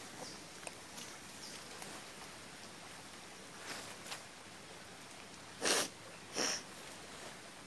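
A person sniffing twice close to the microphone, two short loud sniffs about half a second apart. Under them is a faint outdoor hiss with scattered small ticks.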